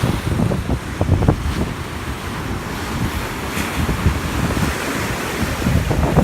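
Rough sea surf rushing and breaking under strong typhoon winds, with gusts buffeting the microphone in irregular low rumbles.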